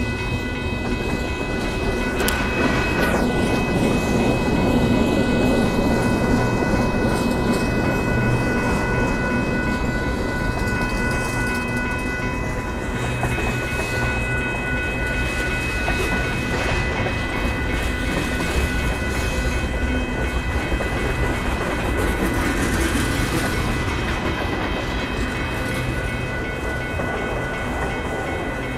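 Union Pacific manifest freight train's cars rolling past: a steady rumble and clatter of wheels on rail, with several steady high tones over it.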